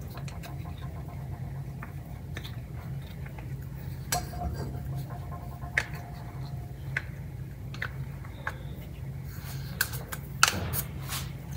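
Scattered light clicks and knocks of kitchen utensils against a saucepan on a gas stove, over a steady low hum; the sharpest knock comes near the end, among a cluster of clicks.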